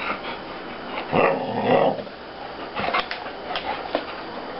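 Blue Thai Ridgeback dog 'talking': one drawn-out vocal sound lasting about a second, starting about a second in, followed by a few short clicks.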